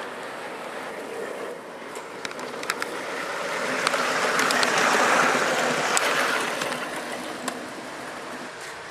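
Ride-on miniature railway locomotive with a rider passing close by: a rolling noise that swells to its loudest about halfway through and then fades, with a few sharp clicks from the wheels on the track.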